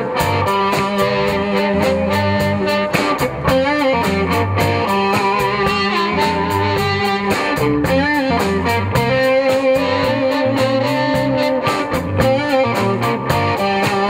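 Live blues band playing an instrumental passage: electric guitar over bass and drums with a steady beat, with bending blues harmonica notes.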